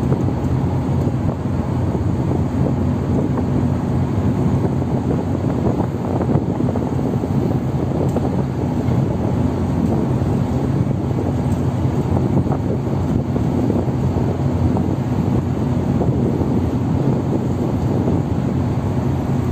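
LCT landing-craft cargo vessel's diesel engines running steadily under way: an even, low drone with no change in pace, mixed with wind noise on the microphone.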